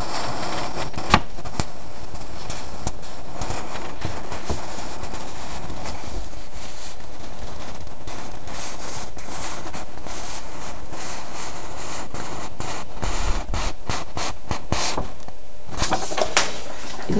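Scratching and scraping handling noises over a steady hiss, with a sharp click about a second in and a cluster of clicks and scrapes near the end.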